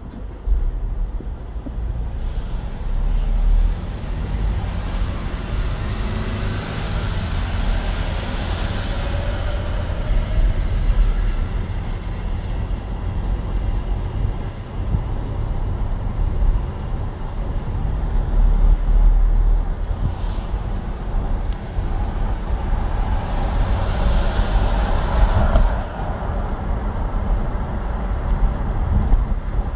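Car driving on a wet road in the rain, heard from inside the cabin: a steady low rumble of engine and tyres with a hiss of water, getting louder about half a second in as the car pulls away. The hiss swells twice, about a third of the way in and again near the end.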